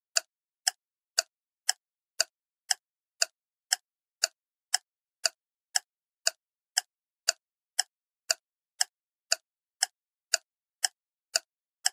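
Steady, even ticking: short, sharp clicks about two a second, with silence between them.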